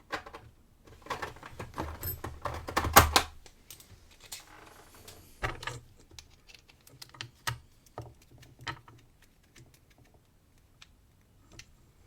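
Irregular small clicks and taps of a screwdriver and padlock parts being handled while tiny screws are worked into the padlock body. The clicks are busiest in the first few seconds, then thin out to occasional single taps.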